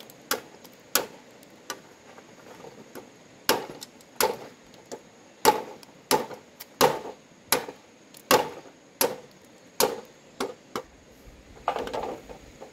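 Large blade chopping into bamboo wood: a steady run of sharp strokes, about one every 0.7 seconds, with a short pause after the first few.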